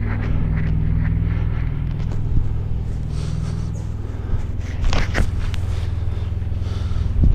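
A vehicle engine idling with a steady low hum, while quilted moving pads are handled and dropped into a trailer, giving a couple of thumps and rustles about five seconds in and another thump near the end.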